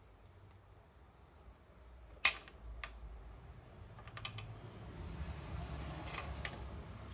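Small clicks and handling sounds from wire-harness connectors and terminals being worked by hand: one sharp click about two seconds in, then a few lighter clicks, with a low rumble from about five seconds on.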